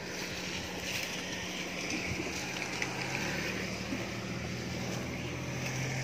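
A motor vehicle's engine humming steadily, its pitch dropping about three seconds in as it goes by.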